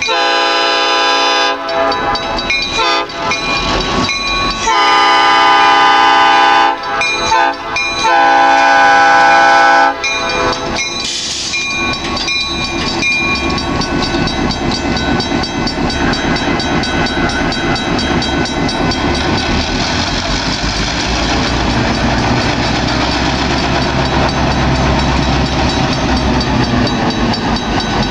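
Horn of a pair of EMD GP16 diesel locomotives sounding for a grade crossing: several blasts over the first ten seconds, mostly long with a short one near the end. After that comes the low rumble of the locomotives' diesel engines as they roll slowly past, growing louder toward the end.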